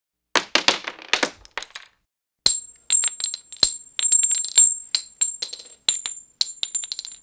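.223 rifle casings dropping onto asphalt: first several land together in a quick jumble of clinks, then single casings strike and bounce one after another, each with a bright metallic ring.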